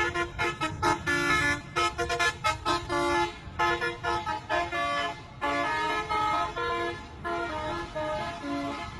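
Bus telolet horn playing a quick melody of short pitched notes, with a few longer held notes in the second half, over a low steady rumble.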